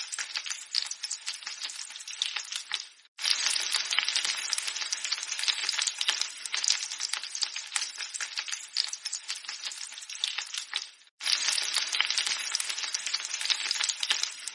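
An egg frying in hot fat: a dense, steady crackling sizzle of many small pops and spits. It drops out briefly twice, about three and eleven seconds in, each time fading to silence and then starting again abruptly.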